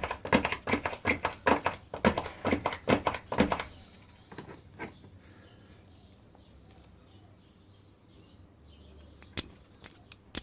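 Spring-loaded automatic center punch pressed and knocked again and again, a fast run of sharp clicks about four a second that stops about three and a half seconds in, followed by a few faint single clicks. The punch is failing to fire and mark properly.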